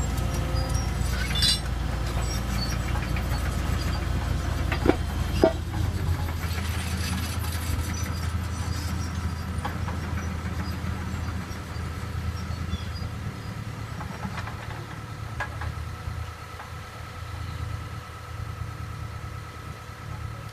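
Crawler excavator's diesel engine running steadily, with a few sharp metal clanks in the first six seconds. The engine noise drops a little after about six seconds.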